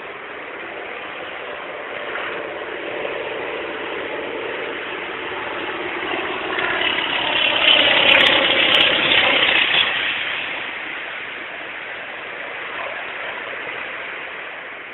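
Propeller aeroplane flying past: its engine drone grows louder to a peak a little past halfway, then fades away.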